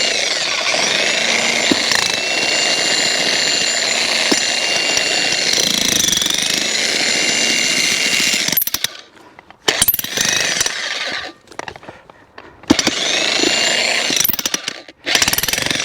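Jackhammer hammering a chisel into a round of stringy cottonwood to split it. It runs steadily for about eight seconds, stops, gives a couple of short bursts, then runs again for the last few seconds with a brief break.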